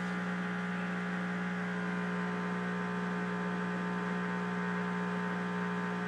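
Whirlpool Duet front-loading washer's drain pump humming steadily as it tries to drain. The water is barely getting out because the drain pump is clogged.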